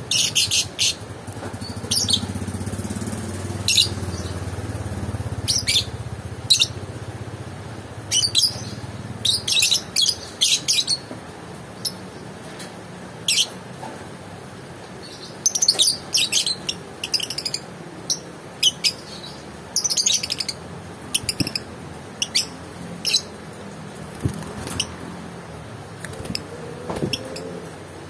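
Fischer's lovebirds chirping: short, sharp, high-pitched calls, some single and some in quick clusters of several, scattered throughout.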